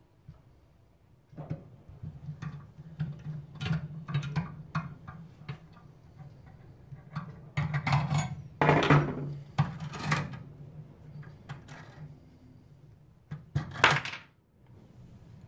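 Metal clicks, clinks and scrapes from a hand-operated brake pipe flaring tool as its yoke screw is turned down with a tommy bar to flare copper brake pipe, then the yoke and flaring bar are taken apart to free the pipe. The loudest clatters come about eight to ten seconds in and again just before the end, over a low steady hum.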